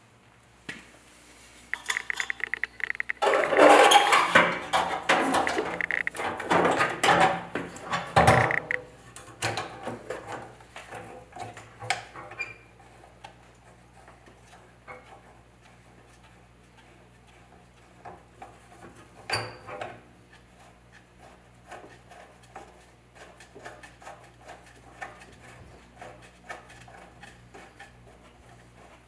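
Metal parts clanking and rattling as they are handled, in a dense burst of clatter from about three to eight seconds in, followed by scattered lighter taps and clicks over a faint steady hum.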